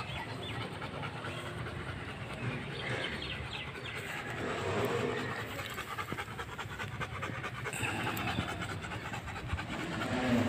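Rottweiler panting quickly and steadily with its tongue out, hot and tired after a long drive.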